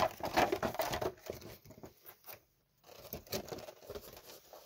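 Stiff clear plastic clamshell packaging crackling and rustling as it is handled over a kitchen scale. It is loudest in the first second and again about three seconds in.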